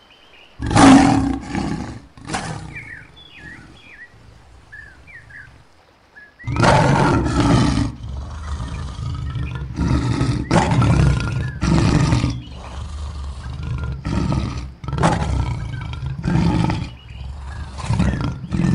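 Lion roaring: two deep calls at the start, then after a pause a long roar followed by a run of shorter calls about one a second, trailing off. Faint bird chirps in the pause between.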